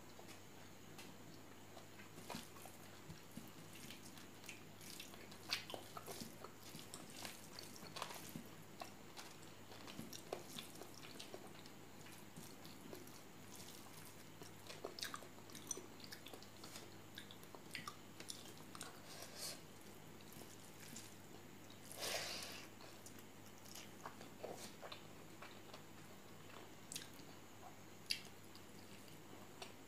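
Close-up mouth sounds of eating pork curry with rice: soft wet chewing and lip smacks, with squishy sounds of the hand mixing rice and curry. One longer, louder noise about two-thirds of the way through, and a sharp click near the end.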